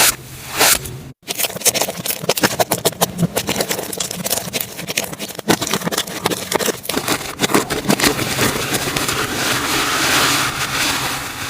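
Slime being pressed and worked by hand: a couple of slow squishes, then, after a sudden cut, a fast dense run of small clicks and pops that thickens into a steady crackle near the end.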